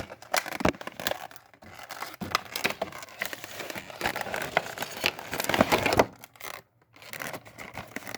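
A model train car's packaging being handled and opened: crinkling plastic and paper with scraping and small clicks, pausing briefly about two-thirds of the way through.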